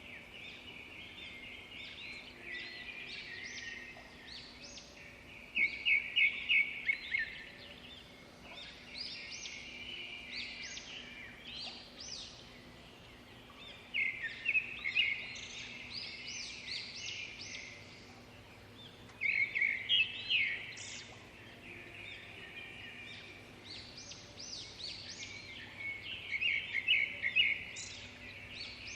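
Birds chirping and chattering in repeated bouts of quick high trills, each a few seconds long, over a faint steady background hum.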